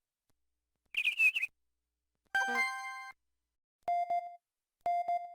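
LG-KH1000 Cyon phone system tones from its Yamaha MA-5 synth chip, played through the phone's speaker: a brief warbling chirp about a second in, then a short chord jingle. After that come single short beeps, repeating about once a second.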